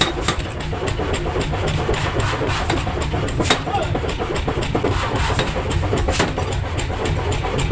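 A machine running steadily with a low rumble, with scattered sharp metal knocks; the loudest come about three and a half seconds and six seconds in.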